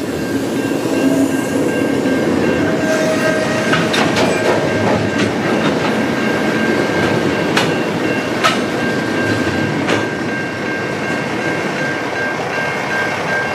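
Container freight wagons rolling past, with a steady rumble and scattered wheel clicks over the rail joints. The rolling eases a little as the last wagons go by. A steady high ringing tone runs underneath, from the level crossing's warning bell.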